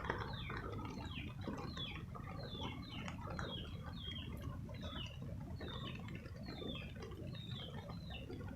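Birds chirping: short, high calls that fall in pitch, repeated about twice a second, over a low steady rumble.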